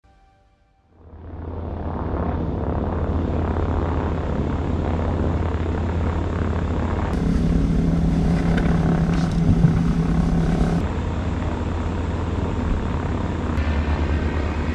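Propeller aircraft engine running steadily with a deep drone, most likely the Diamond DA50 RG's engine. It swells in over the first two seconds. A higher steady tone joins it for a few seconds in the middle.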